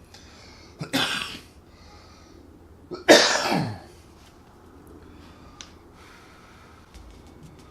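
A man sneezing twice, a short one about a second in and a louder one about three seconds in whose voice falls in pitch at the end.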